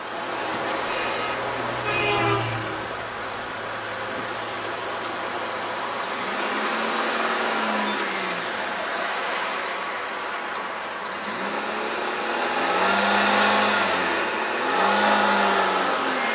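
Road traffic: a steady rumble of cars and heavier vehicles going by, with engine notes that rise and fall several times in the second half. A brief loud burst about nine and a half seconds in.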